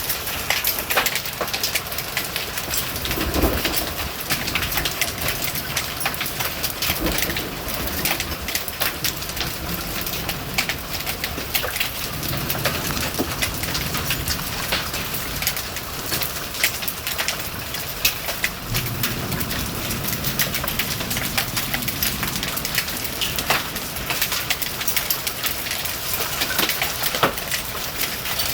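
Hailstones pelting down in a steady storm, a dense, continuous clatter of sharp ticks and patter on hard surfaces.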